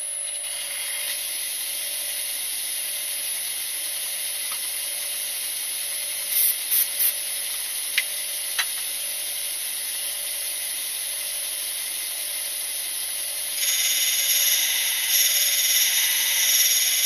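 A small electric motor runs steadily with a high whine. About three-quarters of the way in, a louder rough grinding comes in as a diamond wheel on a lathe-mounted drill-regrinding fixture grinds the tip of a drill. Near the middle there are a few short bursts and two sharp clicks.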